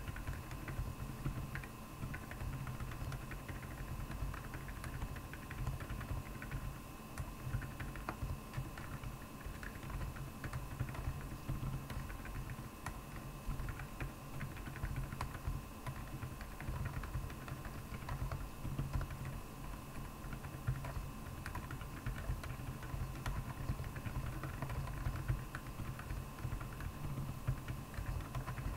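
Continuous typing on a Royal Kludge R75 mechanical keyboard fitted with Akko Penguin silent tactile switches: a dense, uneven run of keystrokes, several a second, each a short click with a low thud.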